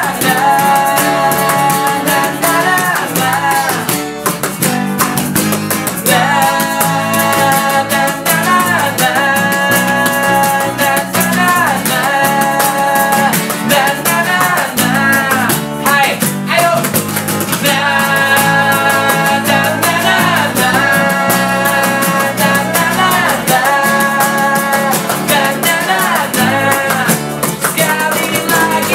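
Pop band playing an acoustic live set: a male lead voice sings phrase by phrase with the others joining in, over two strummed acoustic guitars and an electric bass. Drumsticks tap on plastic buckets for the beat, and an egg shaker rattles along.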